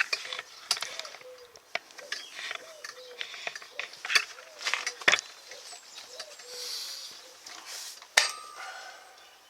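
Scattered clicks and knocks of tools and equipment being handled. A pigeon coos faintly in the background throughout, as a run of short soft notes.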